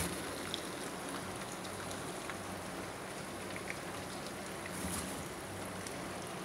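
Chicken pieces frying in oil in a pan, a steady sizzle with a few faint pops.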